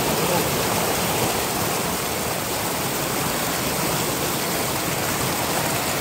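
Mountain stream water rushing and splashing over rocks: a steady, unbroken rush of white water.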